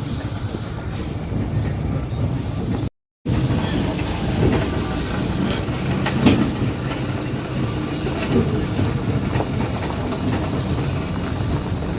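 A train running along the track, with a steady low rumble and wheel clicks over the rail. The sound drops out briefly about three seconds in.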